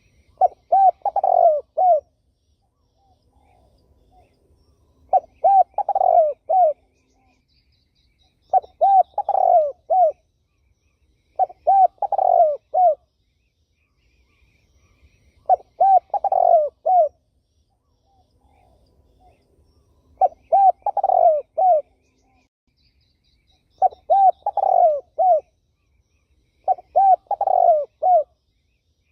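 Turtle dove cooing: a repeated phrase of three or four low coos, given eight times at intervals of about three to four seconds. Faint high chirps of other small birds sound between the phrases.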